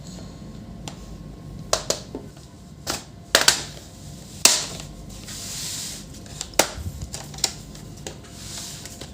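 Irregular sharp clicks and snaps of an Acer laptop's plastic case being opened, with a couple of soft scraping rubs between them.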